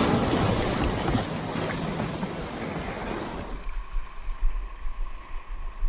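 Sea water rushing and surging over rocks, a loud steady hiss that cuts off abruptly a little over halfway through, leaving a quieter low rumble of wind on the microphone.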